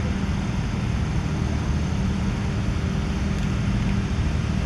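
Steady low rumble with a constant hiss over it, unchanging in level.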